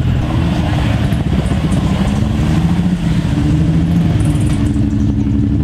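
Classic sports car engines running at low revs as the cars drive slowly past: a Triumph TR3 roadster, then a Jaguar XK fixed-head coupé. The engine note is steady, and a different note takes over about three seconds in.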